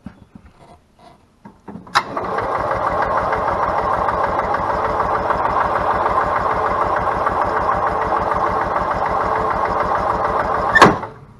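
EZGO golf cart's Robin two-stroke engine cranked over by its starter-generator for a compression test, with its plug out and a gauge in its place, so it does not fire: a click, then about nine seconds of steady, evenly pulsing cranking that stops with a sharp clack. The gauge reaches only about 60 psi, which the mechanic calls not good.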